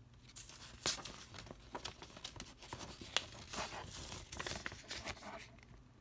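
Paper cover insert of a plastic Blu-ray case rustling and crackling as it is handled and slid back under the case's clear plastic sleeve, with irregular small clicks and a couple of sharper snaps about one second and three seconds in.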